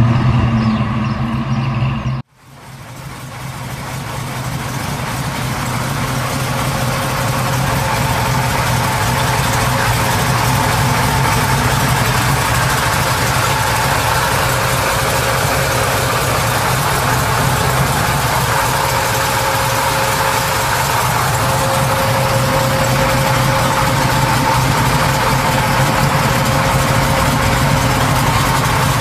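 A car engine running as the car drives off, cut off after about two seconds. Then a Mopar Six Pack V8 idles steadily, fading in over the next few seconds.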